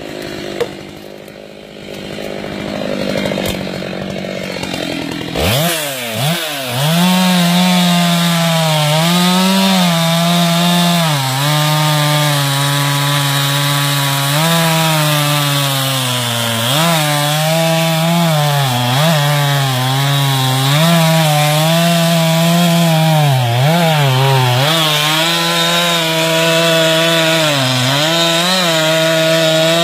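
Two-stroke chainsaw revving up about five seconds in, then cutting into a thick tree trunk at full throttle. Its engine pitch dips and recovers again and again as the chain loads up in the wood.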